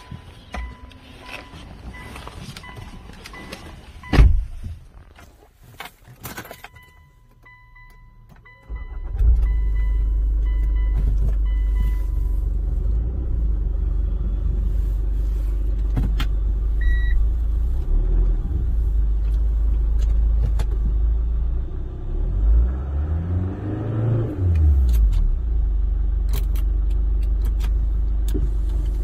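A 2007 Hyundai Tucson. First come key jangles, a loud door thump and a repeating dashboard warning chime. About nine seconds in the engine starts and settles into a steady idle, revved up and back down once late on.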